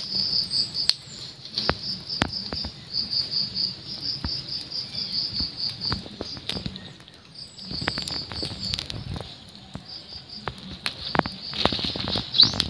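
An insect chirping in a high, even pulse of about six chirps a second, in runs with short breaks. Over it come scattered sharp scuffs and rustles from kittens tussling on dry dirt and leaves.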